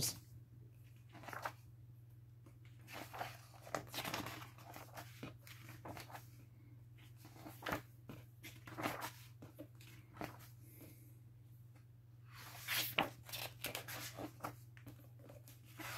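Glossy pages of a large hardcover book being leafed through by hand: a run of short, irregular paper rustles and flaps, busiest about three quarters of the way in, over a faint steady low hum.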